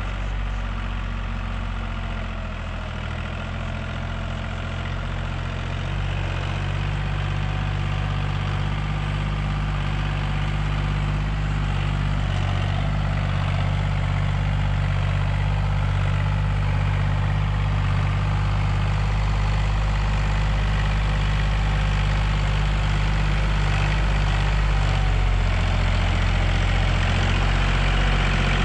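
Farm tractor's diesel engine running steadily under load while it tows a laser land leveler, growing slowly louder as it comes closer.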